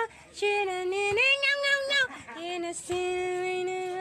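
A high female voice singing a short melody in several phrases, with a higher note held in the middle and a lower note held for about a second near the end.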